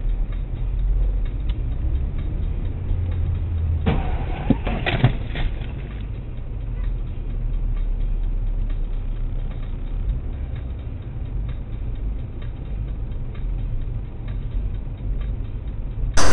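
Low, steady rumble of a car's engine and road noise heard from inside a moving car, as a dashcam picks it up. A short cluster of knocks and clatter comes about four to five and a half seconds in.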